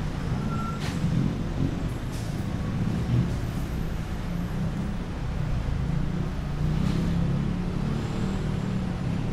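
Busy street traffic: the engines of cars and buses running close by, a steady low rumble, with a couple of short clicks.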